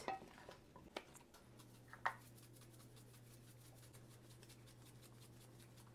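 Near silence: two faint soft knocks about one and two seconds in, as wooden spatulas toss potatoes in a ceramic bowl, over a faint low steady hum.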